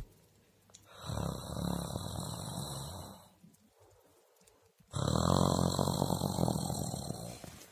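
Pug puppy snoring while it sleeps: two long, rough snores, one starting about a second in and another about five seconds in, each lasting around two and a half seconds.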